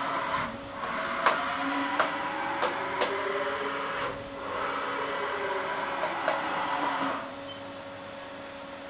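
Haas VF-5/50 CNC vertical mill's spindle head travelling up and down on its Z axis: servo whine gliding up and down in pitch over a steady rushing noise, with a few sharp clicks. The motion stops about seven seconds in, leaving a quieter steady hum.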